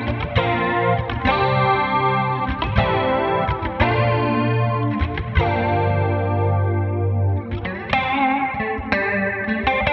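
Clean electric guitar played through a Line 6 Helix preset with chorus-type modulation and a long hall reverb (Dynamic Hall, 3-second decay): a run of plucked single notes and chords, each ringing out into the next, with a held low note for a couple of seconds past the middle.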